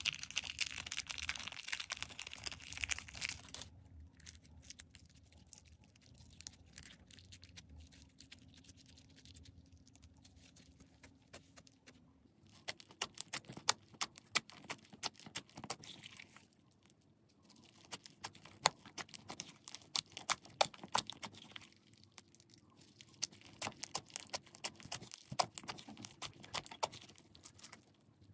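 Slime being squeezed and worked by hand: a rapid run of small wet clicks, crackles and pops. It is a dense crackling in the first few seconds, then quieter clicking, then sharper, louder pops from about halfway on.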